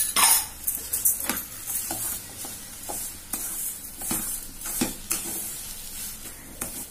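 Wooden spatula stirring and scraping thick semolina sheera around a metal kadai, in uneven strokes about one or two a second, loudest at the start.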